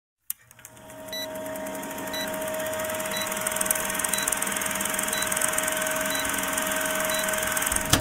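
Old film projector running under a film countdown leader: a steady mechanical whir and hum with film crackle, and a short high beep once a second marking the count. It fades in over the first second and cuts off suddenly at the end.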